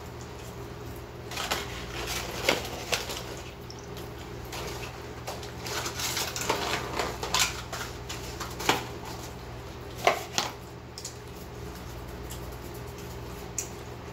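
Irregular crackling and clicking from food and its paper packaging being handled at the table during a meal, thickest in the first two-thirds and tailing off, over a steady low room hum.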